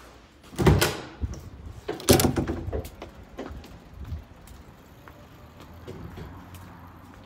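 A door opening and shutting: two loud thuds about a second and a half apart, then a few lighter knocks.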